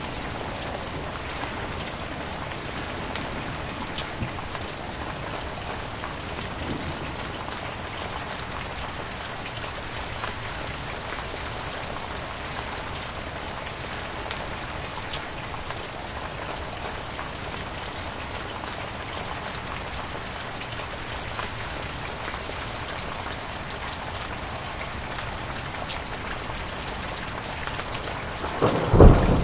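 Heavy rain falling steadily, with scattered sharp drop impacts over the even hiss of the downpour. Just before the end, a sudden loud, low clap of thunder.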